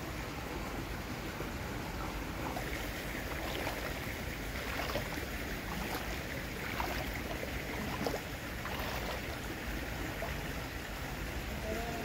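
Steady rush of flowing floodwater with a low wind rumble on the microphone and a few small splashes.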